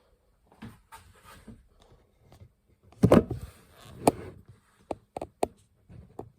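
Close-up knocks and clicks: a loud thump about three seconds in, a sharp knock about a second later, then a few quick clicks.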